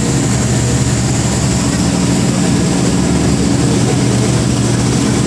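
Heavy machinery on an offshore tender barge's deck running steadily: a loud, unchanging deep hum with a hiss above it.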